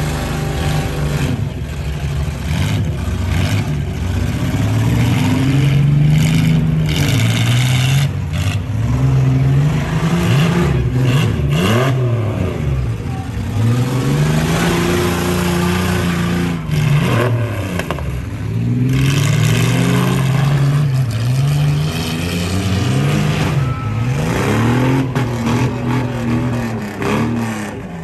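Van and pickup truck engines revving up and falling back again and again as the two demolition derby vehicles drive at each other, with scattered bangs and clatter of crashing metal.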